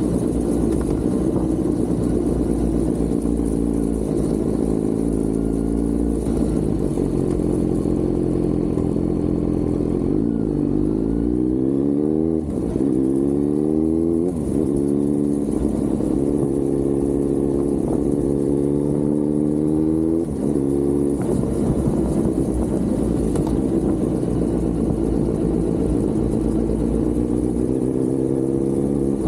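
Kawasaki Z900's inline-four engine running under way, mostly at a steady pitch, with the revs rising about ten seconds in and short drops in loudness at the upshifts around twelve, fourteen and twenty seconds. A low rumble of wind and road noise lies under it.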